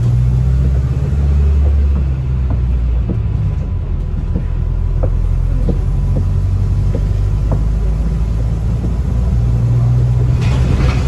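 Interior of a Volvo B5LH hybrid double-decker bus on the move: a steady low engine drone that shifts in pitch several times, with a few light rattles from the bodywork.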